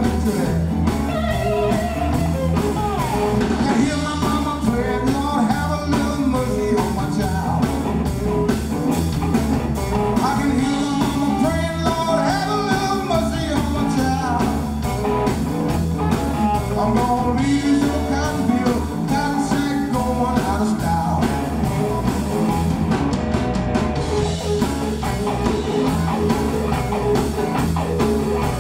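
Live electric blues band playing: electric guitar lines over bass and drums with a steady beat.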